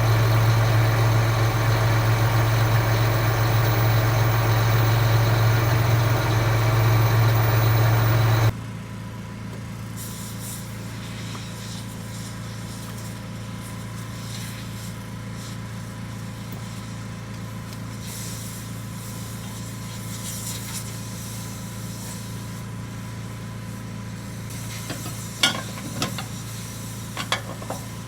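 Heavy farm diesel engine running steadily up close, a strong low drone, cut off abruptly about eight seconds in. A quieter steady hum remains, with a few sharp clicks near the end.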